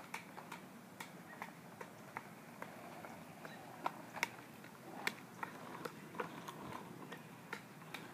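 Juggling clubs slapping into the hands as they are caught: a run of sharp clicks at a fairly even pace, about two or three a second.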